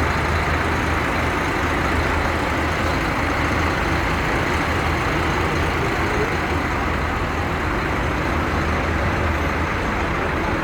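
A bus engine and road noise running steadily: an even rush over a constant low hum.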